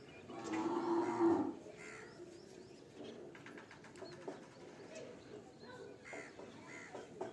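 A cow mooing once, a single drawn-out call of about a second near the start. Faint bird chirps follow.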